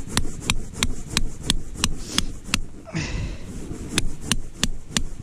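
A hammer driving an L-shaped steel tent peg into lake ice: sharp metallic blows about three a second, with a short pause a little past halfway.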